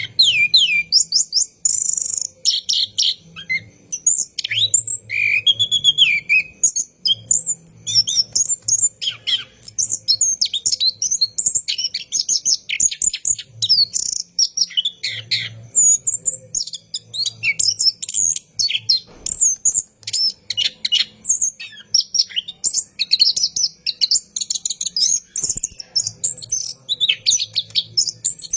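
Chestnut-capped thrush (anis kembang) singing a long, unbroken run of rapid, varied whistles, trills and chirps, with barely a gap between phrases.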